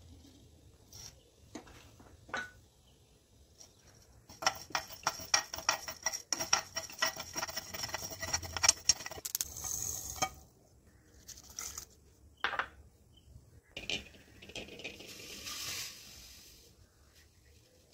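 Whole spice seeds, mustard among them, being stirred with a steel spoon as they dry-roast in a nonstick frying pan. For about five seconds there is a dense patter of small clicks and scrapes, followed by a few separate knocks.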